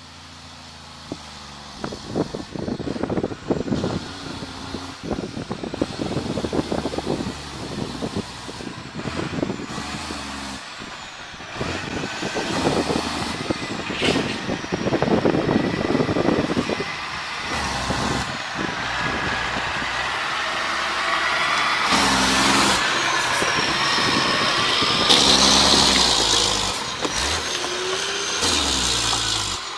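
Loaded log truck's diesel engine running as it drives up and past on a rocky gravel road, its pitch stepping up and down, with a dense crackle through the first half and louder running with a hiss near the end.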